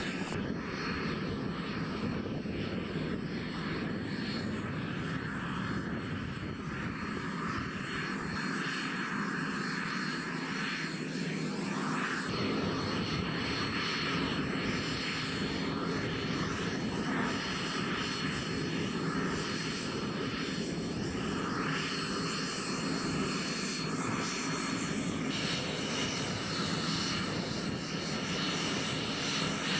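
Helicopter engine and rotor running steadily.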